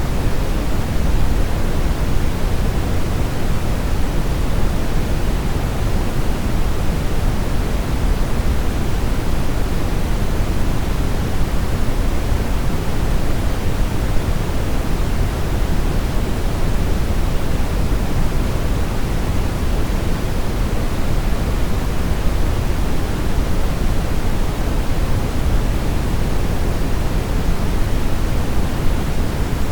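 Continuous brown noise: a steady, deep rushing hiss with most of its weight in the bass, fading toward the treble, unchanging throughout.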